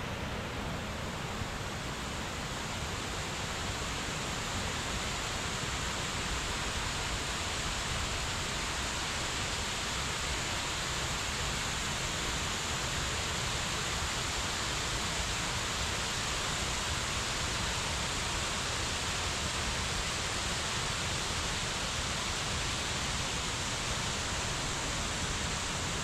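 Steady rush and splash of a curtain waterfall, many thin streams of water spilling over a rock ledge into a pool.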